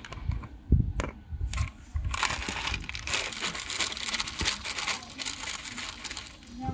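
Dry cat kibble poured from a plastic bottle, pattering onto a hard terrazzo floor as a dense stream of small clicks from about two seconds in.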